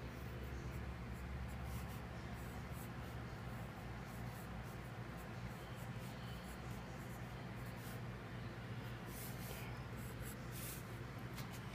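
Wooden graphite pencil scratching across drawing paper in short sketching strokes, with a steady low hum underneath.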